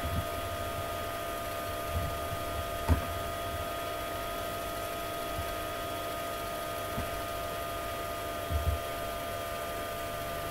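Steady background hum with several faint steady tones, and a few soft low thumps: one at the start, two around 2 to 3 seconds in, and one near the end.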